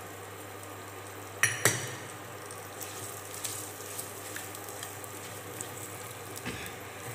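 Moringa drumstick pieces sizzling gently in oil in a non-stick kadai while a silicone spatula stirs them, with scattered small scrapes and ticks and two sharp knocks about a second and a half in. A steady low hum runs underneath.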